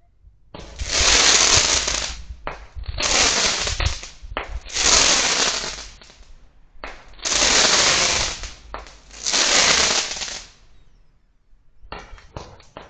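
Fireworks going off: about five long hissing bursts, each lasting a second or two, then sharp crackling pops near the end as another firework flares up.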